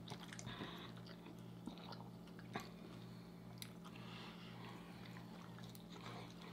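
Close-miked biting and chewing of birria tacos, with scattered small wet clicks and crunches from the meat and fried tortilla. A faint steady low hum runs underneath.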